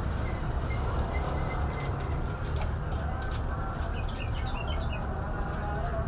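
Outdoor market background: a steady low rumble with caged birds chirping, a cluster of short chirps about four seconds in.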